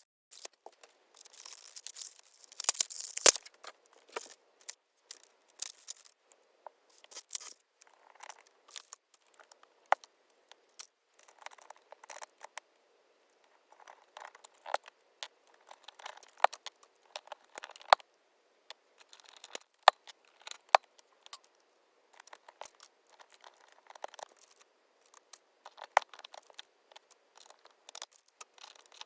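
Hands handling plastic keycaps and their packaging: irregular sharp plastic clicks and taps with short bursts of crinkling, busiest a couple of seconds in.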